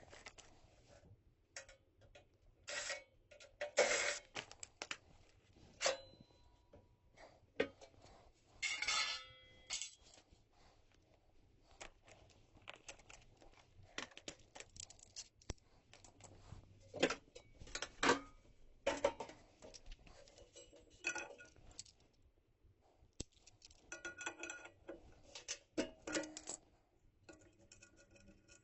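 Hand tools and metal furnace parts being handled: scattered clicks, taps and clinks of metal on metal, some with a short metallic ring.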